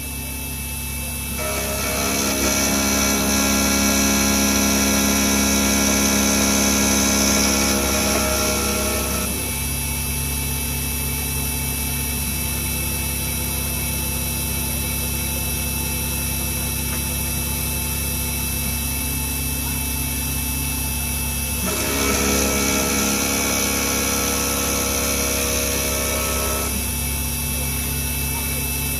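CNC milling machine running a conrod profile program: a steady spindle and motor whine with several steady tones. It grows louder twice, for several seconds each time, with a higher whine added.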